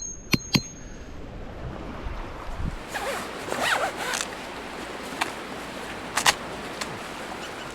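Zipper on a OneTigris COCO NEST hot tent being pulled along its track in a few rasping runs. It opens with two last sharp metallic knocks.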